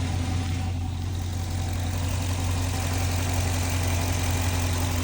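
6.4L HEMI V8 engine of a 2017 Ram idling steadily, running on Liqui Moly hydraulic lifter additive for about 100 miles to quiet a lifter tick. The owner judges it sounds a little better.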